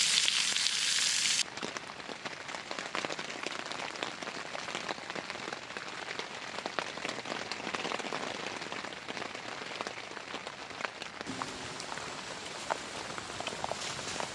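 Steady rain falling around a wood campfire: an even hiss of rain with many scattered small ticks. It opens with a louder, higher sizzling hiss that cuts off suddenly about a second and a half in.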